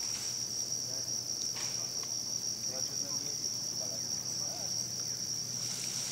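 A continuous high-pitched drone of insects in the forest, one steady even tone.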